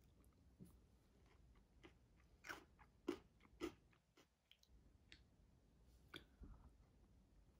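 Quiet eating sounds from a bowl of fruit, yogurt and granola eaten with a plastic spoon: the spoon scooping in the bowl and granola crunching as it is bitten and chewed. There are a few sharp clicks and crunches, the loudest three close together around the middle.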